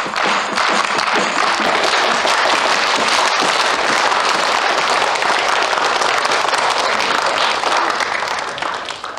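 Audience applauding loudly and steadily in a large hall, dying away in the last moment.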